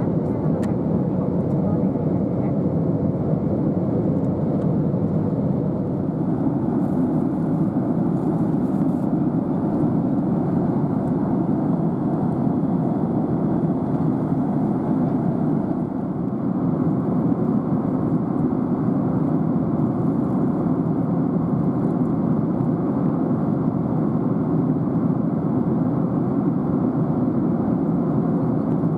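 Steady airliner cabin noise: a constant rumbling hiss with no change in level.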